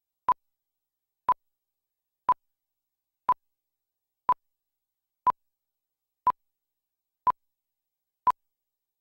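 Countdown beeps of a television programme slate: nine short beeps at one steady pitch, one a second, with silence between.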